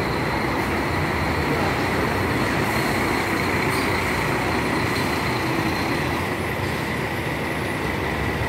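Diesel intercity coach passing at close range and pulling away, its engine running steadily with a constant high-pitched whine over the rumble.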